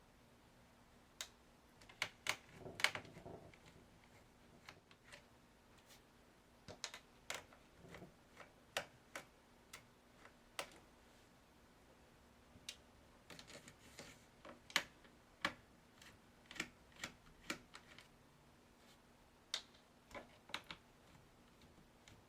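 Irregular sharp clicks and taps from handling an Acer Aspire 5920 laptop's plastic case and parts during disassembly, with a quick cluster of louder knocks about two to three seconds in. A faint steady hum sits underneath.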